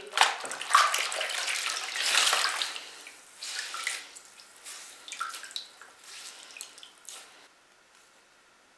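Wet baby clothes being squeezed and wrung out by hand in a plastic basin of soapy water: splashing and trickling, loudest over the first three seconds, then thinning to scattered splashes and drips that die away near the end.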